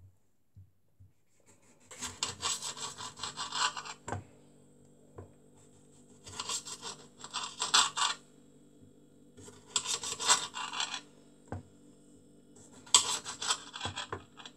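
Kitchen knife sawing through tomatoes: four spells of quick back-and-forth scraping strokes, with a few single knocks in between.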